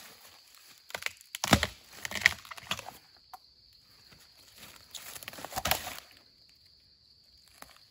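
Fresh bamboo shoots being snapped and cut off at the base: a few sharp cracks with tearing, the loudest about one and a half seconds in, more just after two seconds and again near six seconds.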